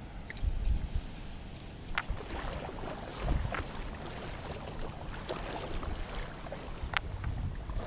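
Shallow river water lapping and splashing close to the microphone, with wind gusts rumbling on the microphone and two sharp ticks, about two and seven seconds in.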